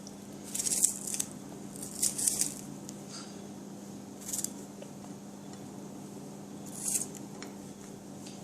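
A handful of short scraping sounds from kitchen handling, such as a knife or utensil on a board or dish, over a steady low hum.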